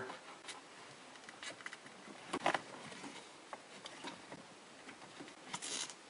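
Faint rustling and small clicks of a car's wiring harness being handled and bundled with plastic tie wraps, with a sharper click about two and a half seconds in and a short rasp near the end.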